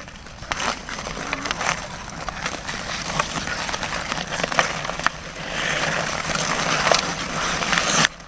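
Hockey skates scraping and carving across outdoor pond ice, swelling about two thirds of the way through, with scattered sharp clacks of sticks on the puck and ice.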